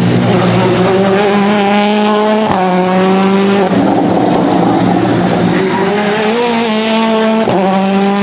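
Rally car engine under hard acceleration, its pitch climbing, with a sharp crack at a gear change about two and a half seconds in and another near the end; in between it eases off briefly and climbs again.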